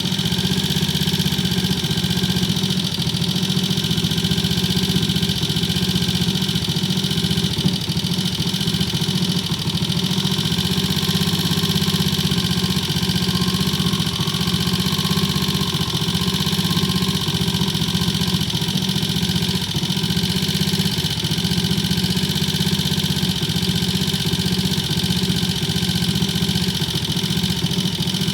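Triumph T20M's single-cylinder engine running steadily at a constant speed, with no revving.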